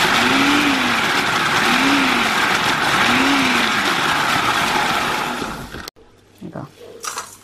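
Electric food processor running at full speed, its blade grinding graham crackers into crumbs; the motor cuts off suddenly about six seconds in, followed by a few light knocks.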